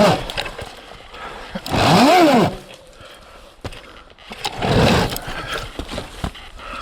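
Electric dirt bike on a rough forest trail: scattered knocks and rattles of the bike over the ground, a short whine about two seconds in that rises and falls in pitch like a throttle blip, and a louder rush near five seconds.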